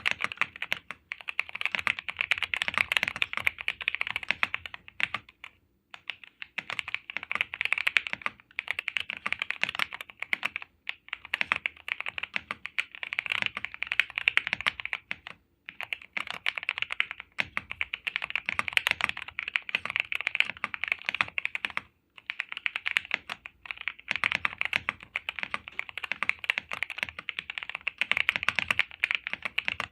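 Fast, continuous typing on a Keychron V1 Max mechanical keyboard with Akko V3 Lavender Purple tactile switches and PBT keycaps: a dense run of keystroke clicks with soft bottom-outs, broken by a few brief pauses.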